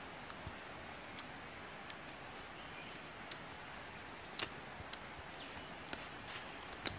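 Steady high-pitched drone of forest insects, with a few scattered small clicks and snaps.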